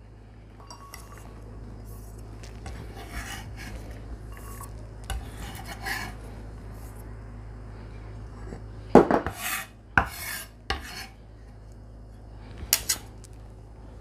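Chef's knife scraping diced bell pepper across a wooden cutting board and into a ceramic bowl, with soft scraping throughout. A few sharp clinks and knocks of the knife and bowl come about nine and ten seconds in and again near the end.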